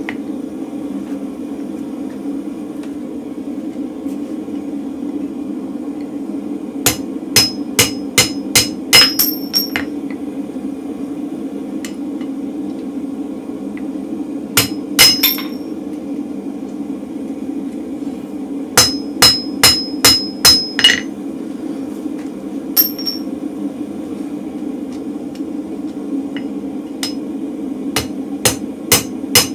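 Hand hammer striking a steel drift driven through a punched hole in red-hot mild steel flat on an anvil, with clanging metal-on-metal blows in about five bursts of several quick strikes, pauses between. The gas forge runs steadily underneath.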